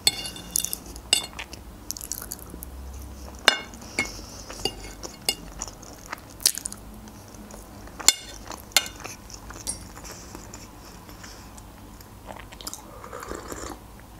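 Close-up chewing and wet mouth smacks of someone eating a soft layered mimosa salad, with scattered sharp clicks of a metal fork against a china plate, one ringing briefly at the start.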